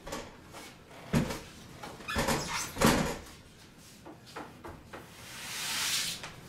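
Dull clunks and knocks, three of them in the first three seconds, as a jobsite table saw on its metal folding stand is set down and settles on a wooden floor, then a few light clicks and a soft rustling hiss near the end.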